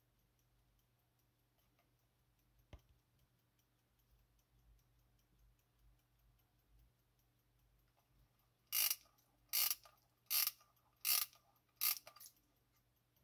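Soviet AChS aircraft cockpit clock being wound by its knob: five short ratcheting bursts, about one every three-quarters of a second, in the second half, after a single faint click.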